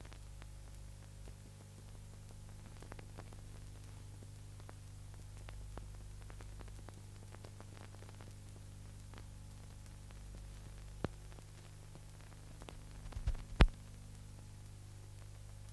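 Steady low electrical hum with faint hiss and scattered clicks, and a short cluster of louder pops about thirteen seconds in: the background noise of a transfer of silent archive film that has no soundtrack.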